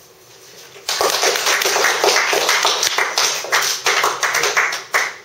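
A small audience applauding, breaking out suddenly about a second in and dying away near the end.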